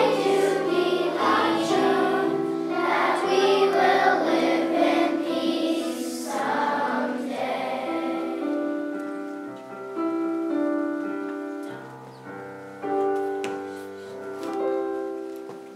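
Children's choir singing. The song ends on long held notes that die away near the end.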